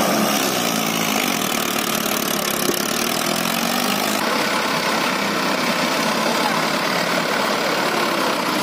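Mahindra Arjun tractor's diesel engine running steadily at low revs in a muddy field. The sound shifts a little about four seconds in, where the shot changes to another tractor.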